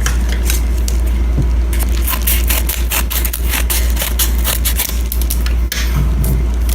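Crinkling and crackling of mail packaging being handled and opened, a dense run of irregular crackles and scrapes, over a steady low hum.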